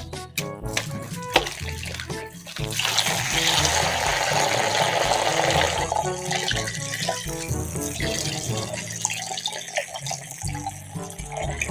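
Background music with a steady beat, and over it a few seconds of water running from a tap, starting about three seconds in and easing off after about six seconds.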